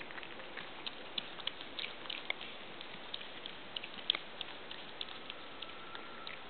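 Small pets crunching corn kernels, with irregular sharp little crunches several times a second over a steady hiss.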